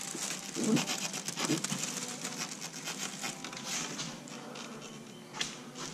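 Rustling, light knocks and scrapes as a small fridge and its plastic and cardboard packaging are handled.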